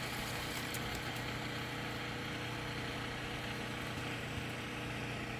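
An engine idling steadily, a low even hum with no changes in speed.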